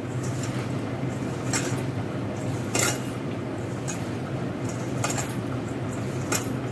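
Sliced snake gourd being tossed and rubbed with salt by hand in a stainless steel bowl: a soft wet rustle of the slices, with about half a dozen irregular light metallic clinks against the bowl, over a steady low hum.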